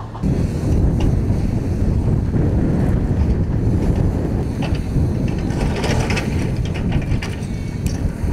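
Hydraulic excavators running, a heavy, steady engine rumble, with scattered scraping and clinking of rock fill through the middle.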